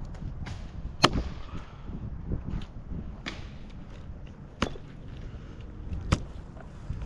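Four sharp cracks or knocks, spaced one to two seconds apart, over a steady low rumble; the first crack, about a second in, is the loudest.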